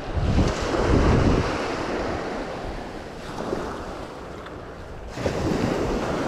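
Wind gusting on the microphone over surf breaking on the shore. The gusts are heaviest in the first second or so, die down, then pick up again about five seconds in.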